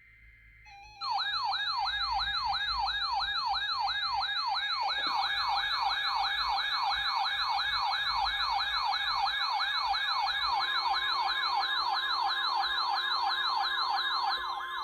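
Electronic emergency-alert siren tone, a yelp that sweeps up in pitch about three times a second. It starts about a second in, and a steady single tone joins it for the last few seconds.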